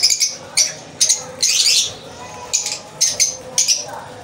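Lovebirds in the aviary colony calling: high-pitched chirps repeated in quick, irregular bursts.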